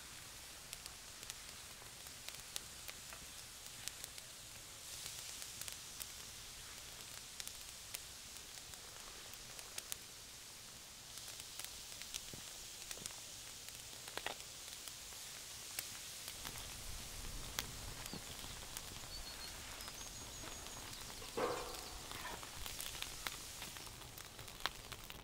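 Crackling fire with a steady hiss and many sharp pops and clicks throughout, the sound of an outdoor cooking fire. About 21 seconds in there is a short, louder pitched call.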